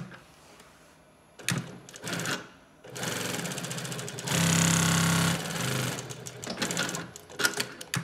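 Juki LU-2828V-7 single-needle walking-foot industrial sewing machine stitching through fabric. It starts about three seconds in and runs with a fast, even stitch rhythm, gets louder for about a second in the middle, then slows and stops. A few sharp clicks come before it starts and after it stops.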